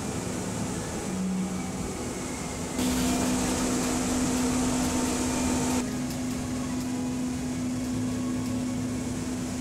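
MUNI Metro light rail vehicle running, a steady hum with one constant low tone. It grows louder and hissier about three seconds in and drops back sharply near six seconds.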